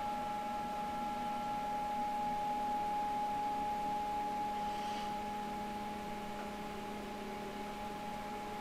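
Stepper motor driving the X-axis ball screw of a CNC-converted benchtop mill at a constant 1000 mm/min feed, giving a steady whine.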